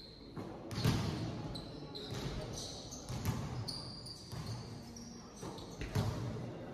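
A basketball bouncing on an indoor court floor, a few irregular dribbles with the loudest thud about a second in, mixed with short high squeaks of sneakers on the court and players' voices in the background.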